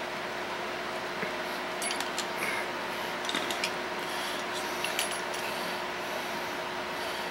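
Light metallic clicks and clinks, scattered irregularly, as a screwdriver and small hardware are handled. A steady hiss with a faint hum runs under them.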